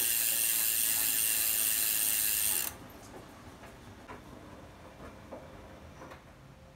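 Mountain bike rear freehub buzzing loudly, its pawls ratcheting rapidly as the wheel freewheels; it cuts off abruptly about three seconds in. After that only a few faint clicks remain.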